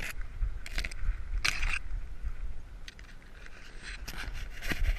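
Palm fronds and dry brush scraping and crackling against a dog-mounted GoPro as the dog pushes through undergrowth, in several short bursts, with a cluster of them near the end. Underneath runs a low rumble of wind and movement on the microphone.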